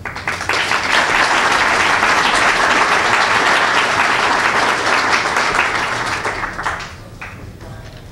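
Audience applauding: the clapping rises within the first second, holds steady for about six seconds, then dies away.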